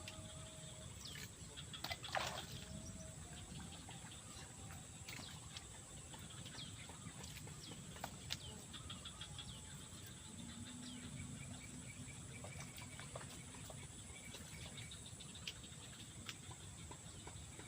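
Faint outdoor ambience: scattered short bird chirps and clicks over a steady high-pitched insect drone and low background hiss, with one brief louder rustle about two seconds in.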